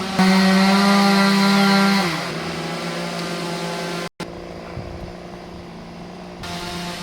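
Chainsaw idling, revved up for about two seconds near the start and then dropping back to idle. The sound cuts out for an instant about four seconds in.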